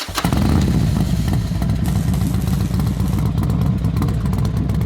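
Motorcycle engine running steadily, a deep, even pulsing.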